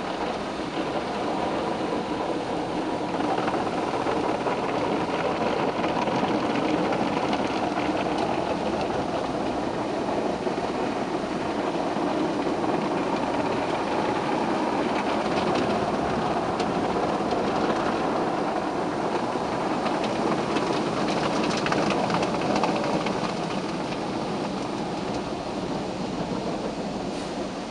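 Automatic tunnel car wash heard from inside the car's cabin: a steady rush of spraying water and spinning cloth brushes rubbing over the car, with the wash machinery running.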